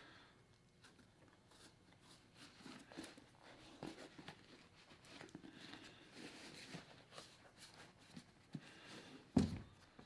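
Faint scattered taps, clicks and rustles of hands handling work in a small room, with one louder knock about nine seconds in.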